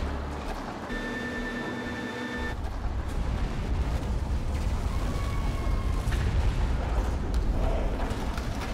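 Rock and debris crashing down as a tunnel boring machine breaks through the wall of a concrete shaft. The deep, noisy rumble starts about two and a half seconds in and builds, loudest in the last few seconds.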